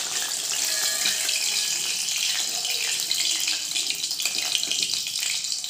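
Hot oil sizzling in a kadhai around a frying chicken drumstick: a steady, high hiss.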